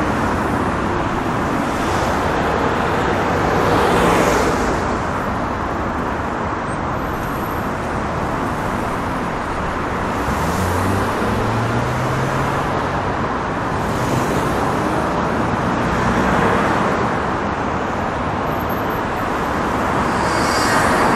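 Heavy city street traffic: a continuous wash of car and engine noise, with individual vehicles passing close every few seconds. Around the middle, one engine is heard pulling away, its pitch rising.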